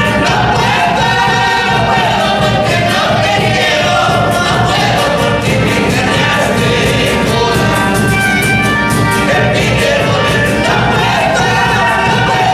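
Andean folk band: several men singing together over strummed acoustic guitars, with a large rope-laced bass drum struck with a stick on a steady beat.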